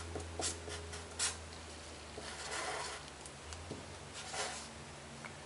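Sharpie permanent marker writing on paper: a run of short, scratchy strokes as the last letters of a word go down, then further strokes as an infinity symbol is drawn.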